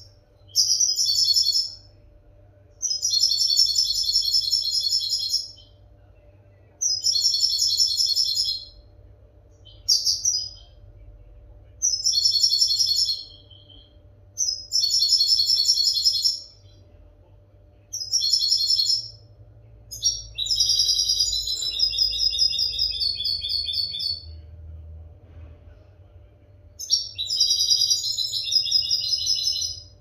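European goldfinch singing in about ten separate phrases of one to four seconds, with short pauses between; the longest phrase comes about two-thirds of the way through. It is a clean song of the kind used to tutor young goldfinches.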